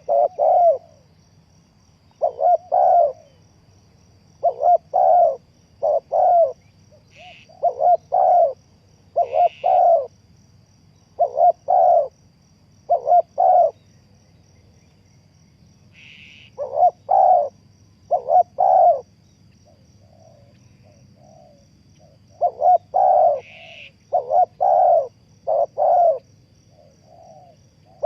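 Spotted dove cooing over and over, in phrases of two or three low coos repeating every second or two. A few brief higher chirps from another bird come in between, over a faint steady high tone.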